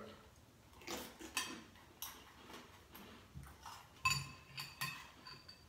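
A spoon clinking and scraping against a cereal bowl in a few short, scattered clicks, with crunchy cereal being chewed in between.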